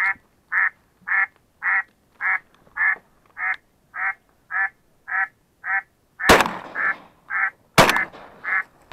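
A duck call sounding a steady string of short quacks, about two a second, while a shotgun fires twice, about a second and a half apart, some six seconds in.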